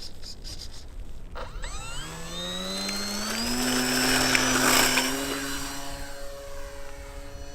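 Brushless electric motor and propeller of an RC Cessna 182 model airplane throttling up for takeoff: a whine that rises in pitch, then holds steady. It is loudest about four to five seconds in, then fades and drops slightly in pitch as the plane flies off.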